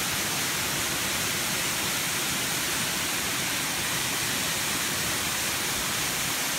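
Waterfall pouring down a rock face into a shallow rocky pool: a steady, even rush of falling water.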